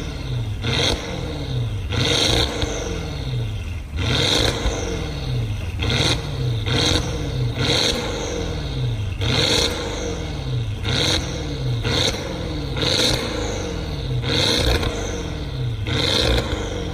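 Porsche Cayenne Turbo's twin-turbo V8 revved repeatedly at standstill through an aftermarket exhaust with valve control: about a dozen quick blips, each rising and falling in pitch, roughly one every second or so.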